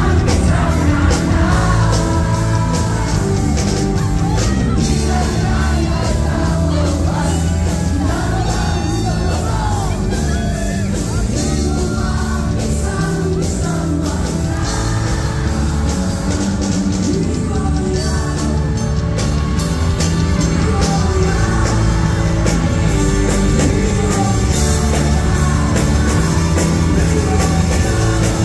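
A live rock band plays loudly over a concert PA while a male lead vocalist sings.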